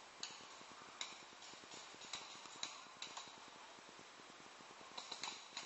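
Faint, sharp pops of paintball markers firing some way off: single shots every half second to a second, then a quick burst of several shots about five seconds in.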